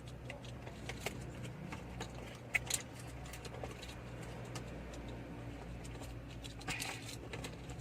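Light clicks and rattles of plastic wiring connectors being handled and plugged into a car's air-conditioning control module, over a steady low hum.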